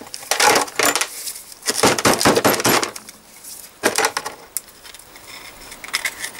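Steel needle rollers being picked out of a suspension arm's bearing race with a small tool, clicking and clinking as they drop into a plastic tub, in several quick clusters of small metallic ticks.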